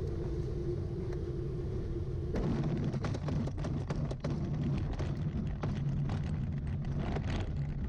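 ASW-15 glider rolling out fast on its landing run, its wheel rumbling and rattling over the ground, with wind noise. A steady hum for about the first two seconds, then rougher rumbling with irregular knocks and rattles.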